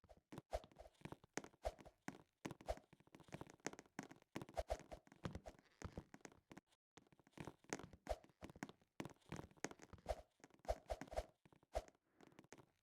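Quiet handling of packaging: scattered small clicks, taps and rustles, with a few soft thuds and bits of tearing and crinkling as something is unwrapped.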